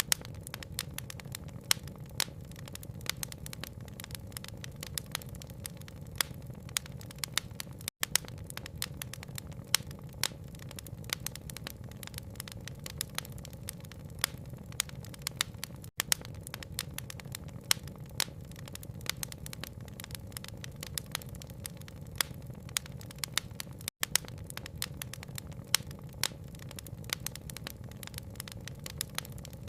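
Wood fire crackling, with frequent sharp, irregular pops over a steady low rumble.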